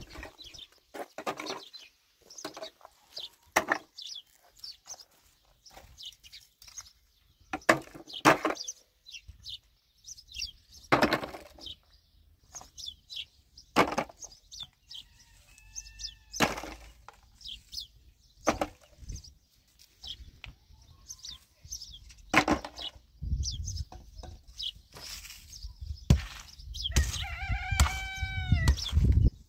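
A small axe striking hard, stony ground in irregular single blows. Near the end a chicken gives an arching, drawn-out call.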